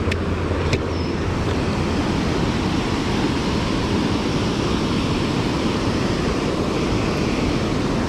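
Steady rush of river water pouring over a low-head dam and churning white below it.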